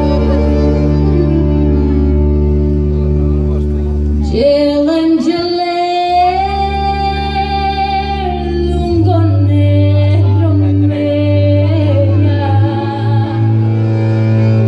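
Slow music with a singing voice over sustained chords and a held bass line. A long, wavering sung note runs from about four seconds in to about nine seconds, and the bass moves to a new note there.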